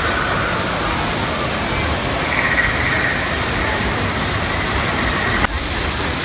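Steady rushing outdoor noise with faint high tones over it, changing abruptly about five and a half seconds in.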